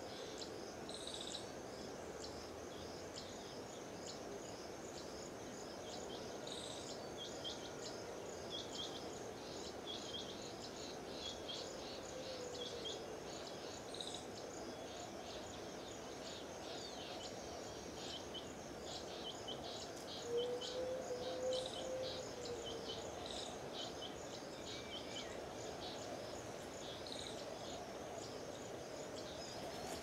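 Faint outdoor ambience: a steady high insect drone with many short, high chirps scattered throughout, and a brief low wavering tone about twenty seconds in.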